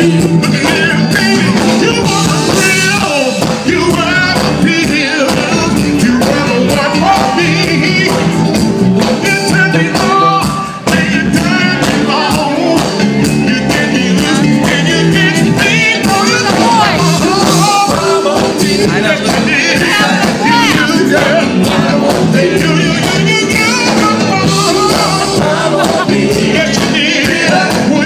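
Live soul band playing loudly, with a sung lead vocal over electric guitar, bass and drums.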